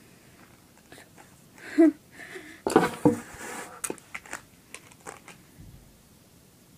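Close handling noise at the microphone: crunchy rustling and sharp clicks, densest about three seconds in, with a short hum just before it.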